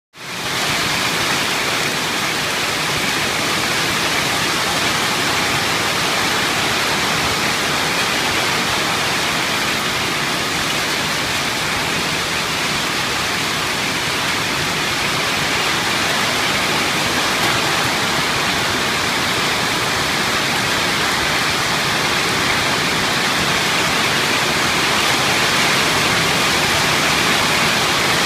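Heavy fall of small hailstones on a shopping centre roof: a loud, steady, dense roar without a break.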